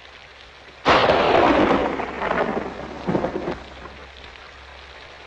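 A thunderclap crashes about a second in, and its rumble fades over the next few seconds with a second swell, over a steady hiss of rain.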